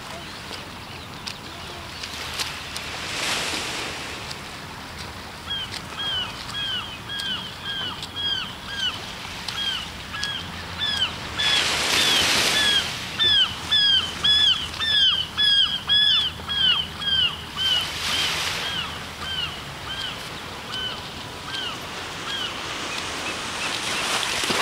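Small waves breaking and washing up a sand beach, a swell of surf every six seconds or so. Through much of the middle a bird calls over and over, about two short calls a second, each dropping in pitch.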